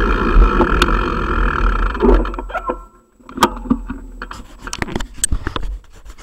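Bicycle rolling with wind on the microphone: a loud low rumble that dies away about three seconds in as the bike comes to a stop, followed by scattered clicks, knocks and scrapes of handling.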